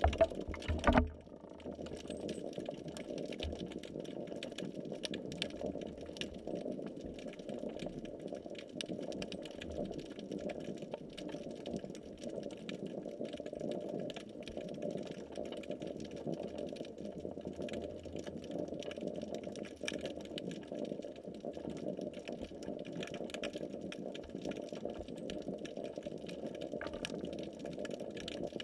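Underwater sound heard through a submerged GoPro's waterproof housing: a steady, muffled rumble with many faint scattered clicks. A few loud knocks come in the first second.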